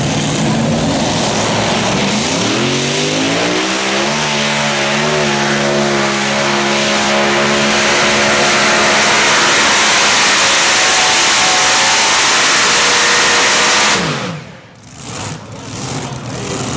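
Multi-engine modified pulling tractor at full power on a pull. The engines rise steeply in pitch over the first few seconds and then run steady and loud. Near the end they cut off suddenly as the tractor is shut down at the end of its run.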